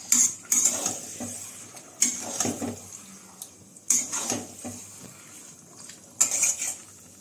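Metal spatula scraping and knocking against a metal kadai as raw chicken pieces are stirred through the masala. There are about five sharp scrapes, irregularly spaced, one to two seconds apart.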